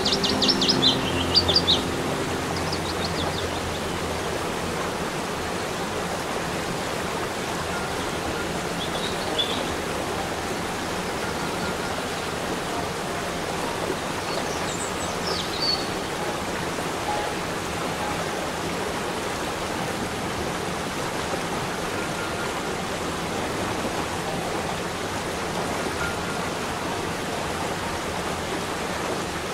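Steady rush of a waterfall's cascades pouring over rock, with a few short bird chirps near the start and again about halfway through.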